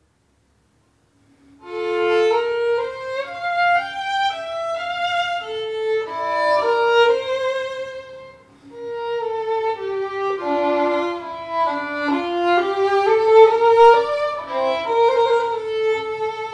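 Solo violin played with the bow: a melody that starts about a second and a half in, with a short break between two phrases about halfway through.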